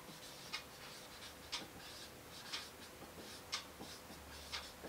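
Faint whiteboard marker strokes as words are written on the board. A faint tick comes about once a second under a faint steady hum.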